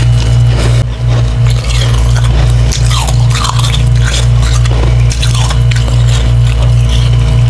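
Biting and chewing soft, water-soaked freezer frost ice: wet, irregular crunching and squishing.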